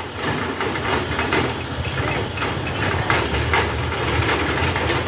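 Heavy diesel engine running steadily at low revs, with irregular metallic clicks and knocks over it.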